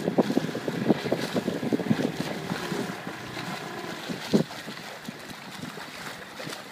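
A boat moving over open water: water slapping and splashing against the hull, with wind buffeting the microphone. The splashing is dense for the first few seconds, then eases, with one louder splash a little past four seconds.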